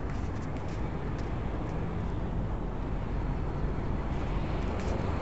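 Steady low rumble of idling truck engines.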